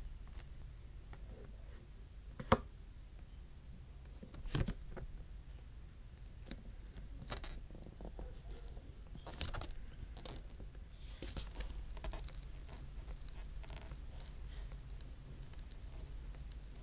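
Plastic playing card worked into the seam under a Galaxy S23's heat-softened back glass, cutting the adhesive with quiet scattered clicks, scrapes and crackles. A sharp click about two and a half seconds in is the loudest sound, and a second small cluster of clicks follows about two seconds later. A low steady hum sits underneath.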